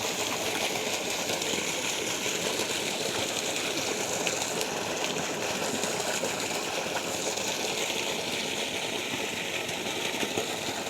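Water rushing and splashing steadily, an even, unbroken hiss-like flow.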